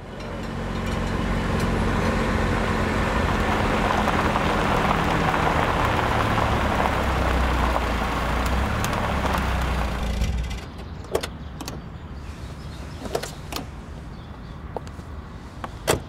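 A car driving, its engine and road noise loud and steady for about ten seconds, then dying away. A few light clicks and knocks follow.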